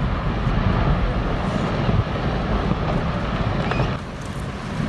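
Glacier ice collapsing into the sea and the wave it raises: a loud, steady rumbling roar.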